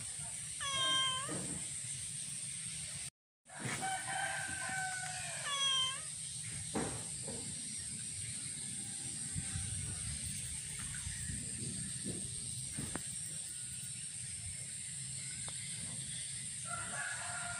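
A domestic cat meowing, stuck up on a roof beam and unable to get down: a short call about a second in, a longer run of calls from about four to six seconds, and another call near the end. A steady high hiss runs underneath, and the sound cuts out for a moment about three seconds in.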